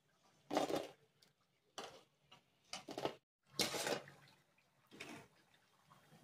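A perforated steel skimmer scraping and knocking against an iron kadai and a steel plate as deep-fried punugulu are scooped out of the oil and tipped onto the plate: about five short, noisy scrapes roughly a second apart.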